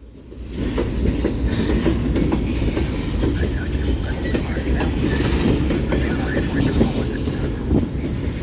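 Union Pacific mixed freight train rolling past: a steady rumble with wheels clattering over the rails. It swells in within the first second and then holds level.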